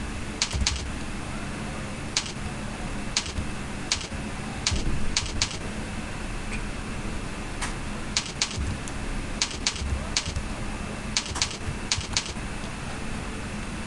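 Typing on a computer keyboard: sharp key clicks in short, irregular runs, over a steady background hiss.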